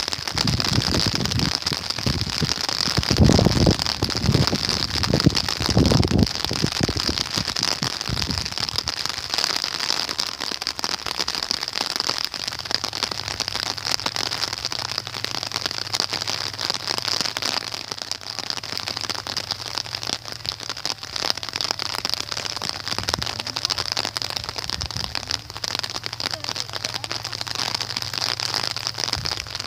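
Rain falling steadily: a dense, even crackle of raindrops. Low rumbles come and go over the first several seconds, and a faint low hum joins about twelve seconds in.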